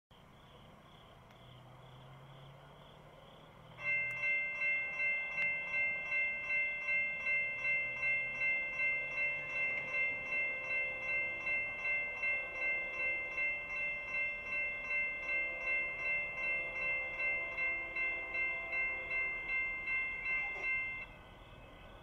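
Railroad grade-crossing warning bell ringing in a steady rhythm of about two strokes a second, starting about four seconds in and cutting off about a second before the end. It is the crossing's warning for an approaching train, falling silent once the gates are fully down.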